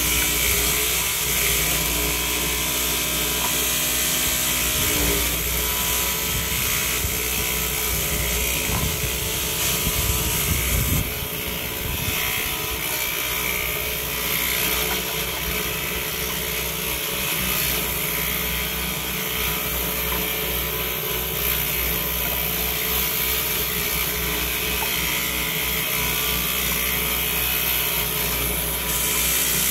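Homemade slotting saw driven by an electric motor, running continuously while wooden ties are pushed through it to cut the grooves for the rails.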